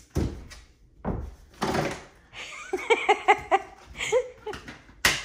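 A small monkey jumping and banging against a wooden closet door: two dull thumps, then the door rattling as it is pushed open, with a sharp click near the end. In the middle, a quick run of short high-pitched calls.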